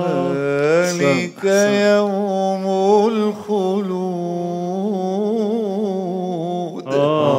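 A male reciter's voice chanting the Quran in melodic maqam style. He draws out long held notes with wavering ornaments, breaks briefly about a second in, then sustains one long phrase before starting a new one near the end.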